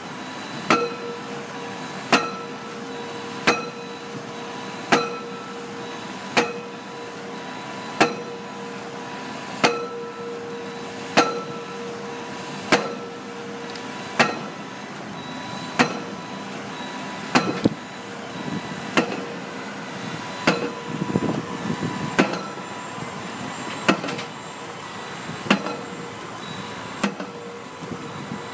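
Pile-driving hammer striking a pile with a regular blow about every second and a half, each impact followed by a ringing clang. A steady machine noise runs underneath and grows rougher for a few seconds past the middle.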